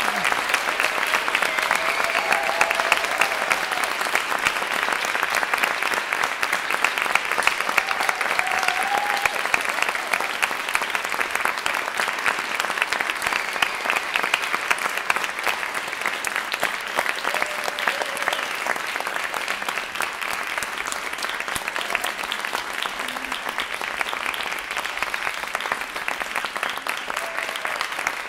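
Audience applauding steadily at a curtain call, with a few brief cheers from the crowd, easing slightly towards the end.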